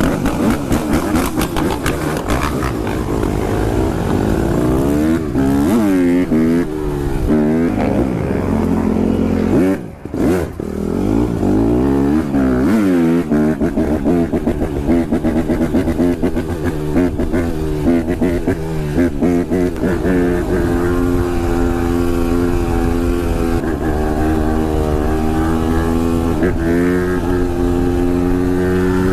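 Dirt bike engine revving hard through the gears, its pitch climbing and dropping again and again, then held steady at a high pitch at speed for the last stretch.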